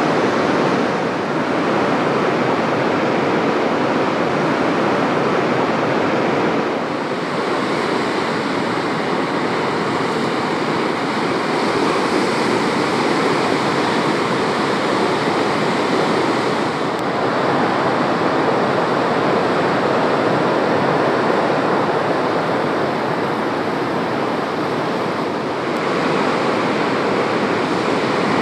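Ocean surf: a steady, loud rush of breaking waves that eases slightly a few times and builds again.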